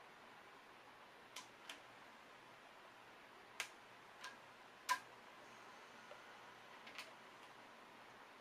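Sparse light clicks, about six, uneven in timing and the loudest around five seconds in, from a timing chain and cam gear being handled while the chain is fitted to a K24 engine's cam sprocket.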